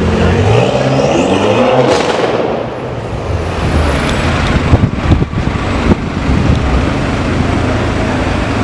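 BMW M6 Convertible's twin-turbo V8 through a Manhart aftermarket exhaust, pulling hard and then backing off after about two seconds. Around the middle the exhaust gives a few loud sharp crackles and pops on the overrun, and the engine keeps running after them.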